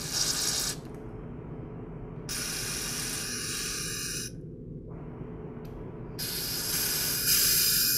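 CRC Clean-R-Carb aerosol carburetor cleaner sprayed through its red straw into the passages of a 2-cycle carburetor body: three hissing bursts of about two seconds each, the first stopping just under a second in, the second around the middle and the third starting about six seconds in.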